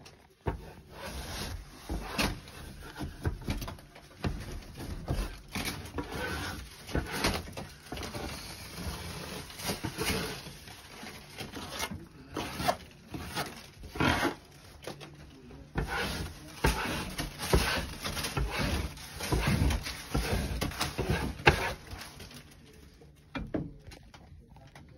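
A hand scraper scraping popcorn (acoustic) ceiling texture off the ceiling in irregular strokes, with rustling and scratching. The strokes die down about two seconds before the end.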